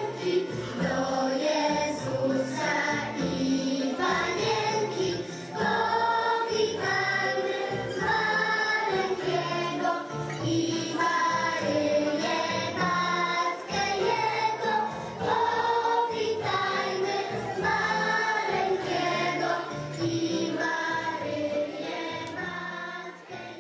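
A group of children singing a Polish Christmas carol (kolęda) together with musical accompaniment. The sound fades out near the end.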